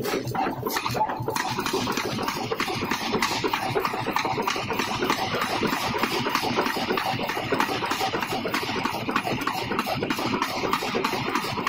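Pneumatic forging hammer running, its ram striking a red-hot steel ring on a mandrel in a dense, continuous run of blows.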